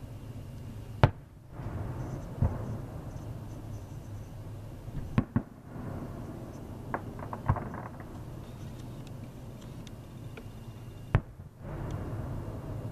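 Fireworks shells bursting in the sky, one sharp bang at a time: a bang about a second in, another soon after, a quick run of bangs around the middle, smaller pops a little later and a last bang near the end. A steady low hum runs underneath.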